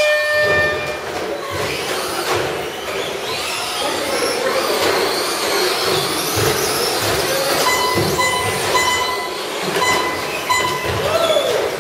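A pack of Traxxas Slash RC short-course trucks racing on carpet, their electric motors whining up and down in pitch as they accelerate and brake. It opens with the tail of a start tone. A string of short beeps comes in from about eight seconds in.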